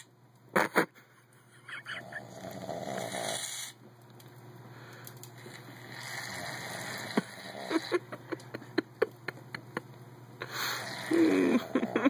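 A man snoring in his sleep, with hissing spurts of aerosol shaving cream being sprayed from a can into his hand and small crackling clicks of the foam.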